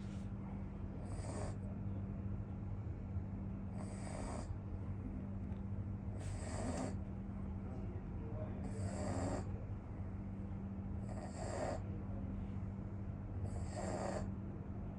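Snoring in a slow, even rhythm, six breaths about two and a half seconds apart, each with a hissy rasp, over a steady low hum.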